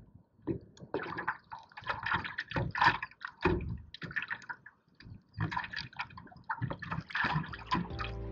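Small choppy waves slapping and splashing against the side of a paddle board right at the microphone, in irregular splashes with short gaps between them.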